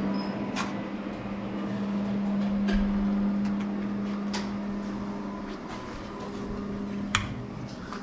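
A steady low machine hum, with a few light clicks and knocks over it.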